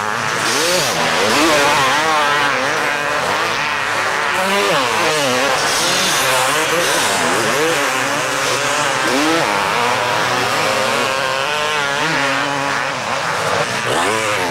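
Several motocross bike engines revving hard and easing off as the bikes race past, their pitches rising and falling and overlapping.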